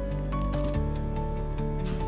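Background music: held notes over a sustained bass, with a change of chord a little under a second in.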